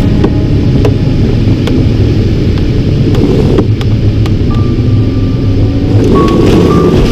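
Loud airflow rushing and rumbling around a glider's cockpit and canopy, with scattered sharp clicks and rattles. A steady electronic instrument tone comes in about four and a half seconds in and breaks into short beeps near the end.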